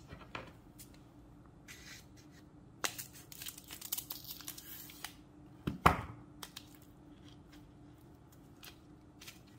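A packet of citric acid being torn open and crinkled by hand, with scattered rustles and small clicks and one sharp tap a little past the middle.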